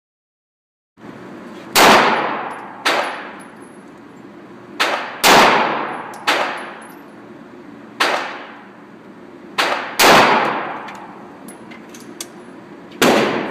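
Handgun shots at a range: about nine irregularly spaced shots of differing loudness, each followed by an echoing tail.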